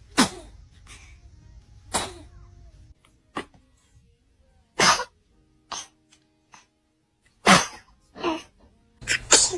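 Babies sneezing: a string of short, sudden sneezes, about eight in all, coming a second or so apart.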